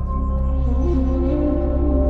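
Calm ambient background music of sustained, held tones over a deep steady bass; a new set of notes comes in just under a second in.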